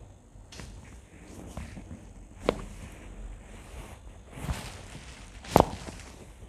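Joints popping during a chiropractic spinal adjustment: a sharp crack about two and a half seconds in and a louder one near the end, with a softer thud between them and faint shuffling of the body on the table.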